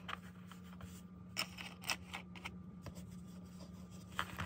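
Faint handling of fabric pieces: soft rustling and a few scattered light clicks, over a low steady hum.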